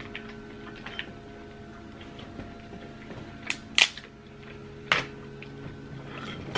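King crab leg shell cracking and snapping as the meat is pulled out by hand: small clicks at first, then three sharp cracks around the middle, over a steady low hum.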